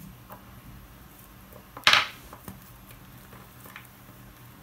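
A single sharp clack of a small hard object being knocked or set down, about two seconds in, amid a few faint handling clicks over a steady low hum.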